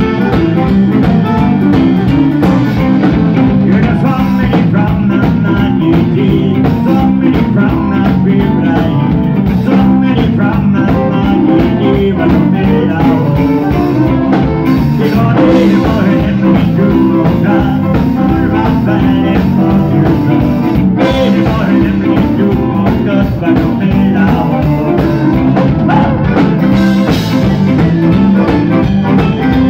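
Live Cajun dance band playing: Cajun button accordion and fiddle over electric guitar and a drum kit keeping a steady beat, with a man singing into the microphone partway through.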